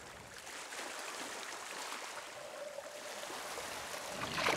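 Shallow sea water lapping and trickling around hands holding a sea trout in the water, with a louder swish near the end.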